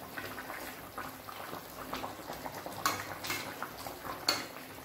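Fish curry bubbling at the boil in a metal kadai while a steel spatula stirs it, with a few sharper clicks of the spatula against the pan.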